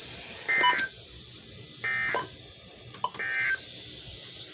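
NOAA Weather Radio SAME end-of-message data bursts: three short, buzzy digital tone bursts about 1.3 seconds apart, the signal that marks the end of the weather alert broadcast. A steady radio hiss lies between them.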